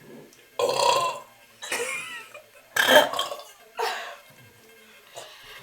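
Young girls burping: four short burps about a second apart, the loudest about three seconds in.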